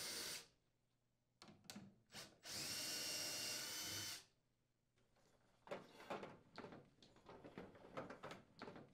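Cordless drill with a 5/16-inch socket unthreading a mounting screw. It whirrs briefly at the start, then again for about two seconds, followed by scattered light clicks and taps.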